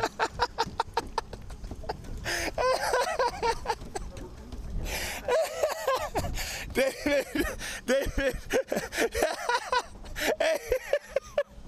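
A person laughing hard in repeated bursts for most of the stretch. A run of quick sharp clicks comes before the laughter, in the first two seconds.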